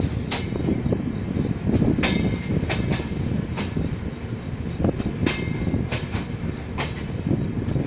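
A train rolling along the track, heard from aboard: a steady low rumble of wheels on rail with sharp clacks and clicks at irregular intervals.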